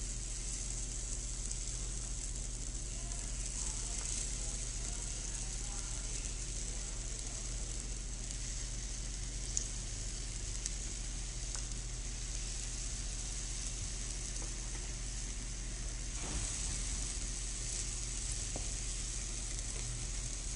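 Belgian waffle batter sizzling as it fills the hot grid cavities of a preheated Gold Medal 5044 waffle dog baker: a steady hiss with a low electrical hum underneath.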